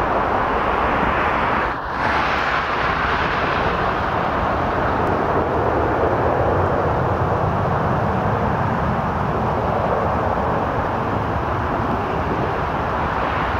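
Airbus A380's four Rolls-Royce Trent 900 turbofan engines on final approach, a steady rushing jet noise. There is a brief dip about two seconds in.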